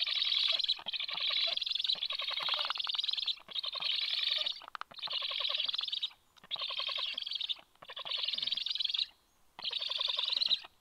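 Young black storks on the nest calling: a series of about eight rapidly pulsed calls, each about a second long, repeated with short breaks between them.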